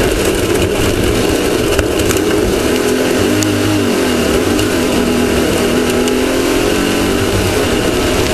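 Off-road race vehicle's engine running under way, its pitch shifting about three to four seconds in, heard from a camera mounted on the vehicle over a steady noisy rush.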